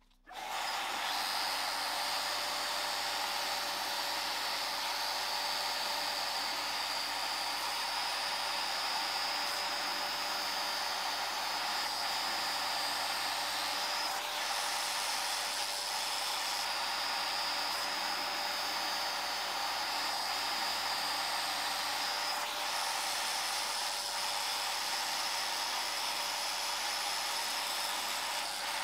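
Proxxon CNC micro mill milling brass sheet with a small end mill: the spindle motor runs with a steady high whine over the hiss of the cutter chipping the brass. It starts suddenly just after the beginning and runs at an even level.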